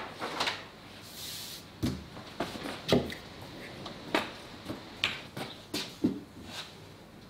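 A paper template being handled and laid on an MDF board, with a short paper rustle about a second in and a series of light knocks and taps. Near the end a glue stick is rubbed across the paper.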